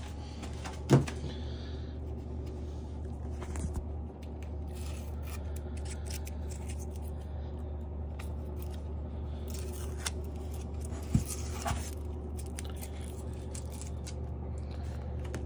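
Handling noise from unpacking an e-bike: a sharp knock about a second in and another around eleven seconds, with light clicks and scrapes in between, over a steady low hum.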